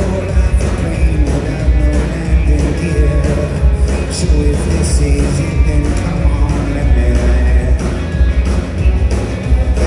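Live rock band playing at full volume: drums keeping a steady beat under electric guitars and bass, with a male lead vocalist singing over it.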